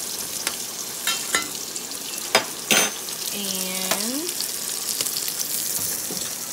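Food sizzling steadily in hot pans on the stove, with a metal spoon clinking sharply against a stainless steel pot several times in the first three seconds as steamed broccoli, carrots and cauliflower are stirred.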